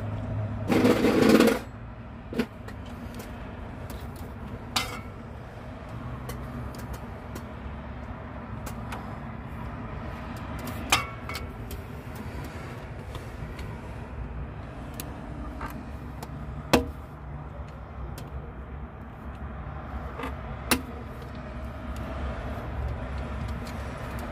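Hand tools working a radiator hose clamp: a short scraping burst about a second in, then scattered sharp metal clicks, over a steady low background hum.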